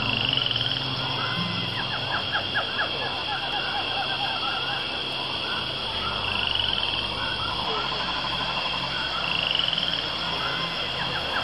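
Frogs calling in short rapid pulse trains and trills over a steady high-pitched insect drone, with a few brief rising chirps.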